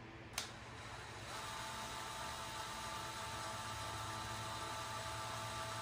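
A DeWalt cordless drill clicks, then spins up about a second in and runs with a steady whine, re-drilling a solder-filled screw hole in a brass baritone saxophone key guard foot.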